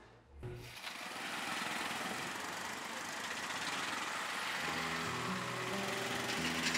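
Outdoor street ambience: a steady wash of noise with an engine-like hum of traffic. From about two-thirds of the way through, a few faint held tones change pitch in steps.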